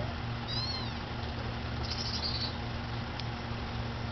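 Kitten mewing faintly for its mother: a few short high-pitched mews about half a second in, over a steady low hum.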